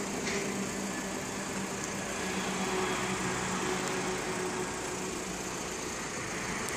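Street traffic: vehicle engines running with a steady low hum over road noise, a tanker truck among the vehicles.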